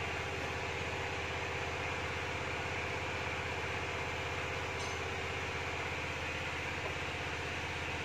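Small engine mounted on an air compressor, running steadily at a constant speed.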